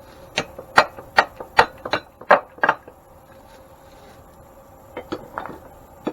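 Hammer tapping a bronze Oil-Lite bushing into its seat in an antique grain mill: seven evenly spaced sharp taps, about two and a half a second, then a few softer taps near the end.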